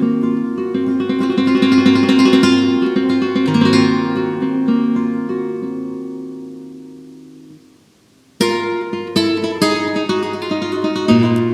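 Flamenco guitar playing a granaína: a passage of plucked notes dies away almost to silence about eight seconds in, then sharp strummed chords start again.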